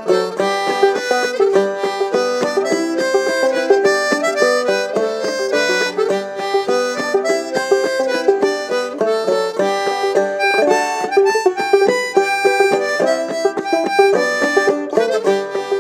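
Clawhammer banjo and harmonica playing an instrumental passage together: the harmonica carries the melody over the banjo's steady rhythmic picking.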